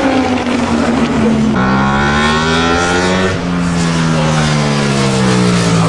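Racing motorcycle engine at high revs going along the track: its note climbs, drops sharply at a gear change about three seconds in, then slowly falls.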